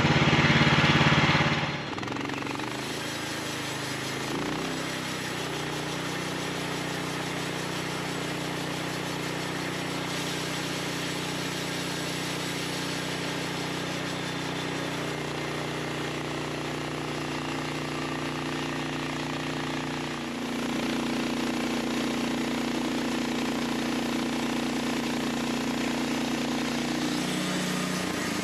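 Engine of a Norwood LumberMate LM29 portable bandsaw mill running steadily as the band blade cuts along a beech log, its pitch shifting a little with load. It is louder for the first couple of seconds and grows louder again about two-thirds of the way through.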